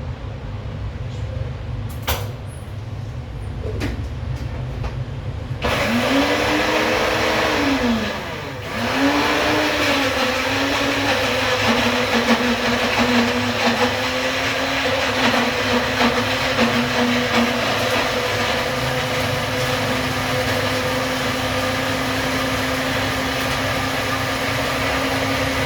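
Electric kitchen blender motor starting about six seconds in, speeding up and slowing down twice in short pulses, then running steadily before winding down near the end.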